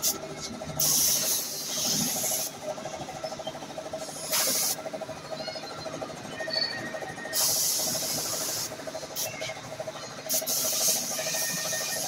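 Gravity-feed paint spray gun spraying the red colour coat onto a motorcycle fuel tank: four bursts of compressed-air hiss, from half a second to nearly two seconds long, over a steady hum.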